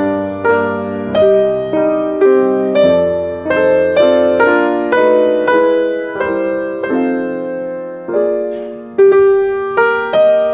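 Solo piano music, gentle and slow, with single notes struck about twice a second over held low bass notes.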